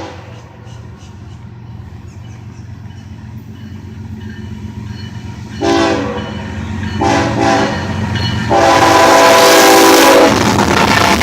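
Freight locomotive approaching and passing, its low engine rumble growing louder, while its multi-chime air horn sounds two short blasts and then a long one. The long blast comes as the train reaches the crossing, and the rush of wheels on rail is loudest there.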